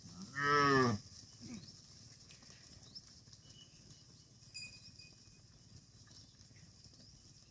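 A cow gives one short moo about half a second in, rising then falling in pitch. Faint low background noise follows.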